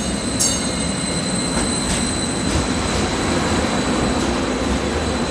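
St. Louis MetroLink light-rail train running past close alongside the platform as it pulls in. Its running gear rumbles under a steady high whine, with a couple of sharp clicks in the first half second.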